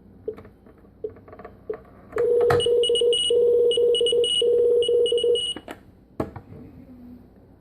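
Electronic toy beeping by itself while switched off: a few faint short blips, then about three seconds of loud, rapidly pulsing electronic tones in three bursts, followed by a couple of clicks. Sounding while turned off, it is a sign of a fault in the toy's electronics.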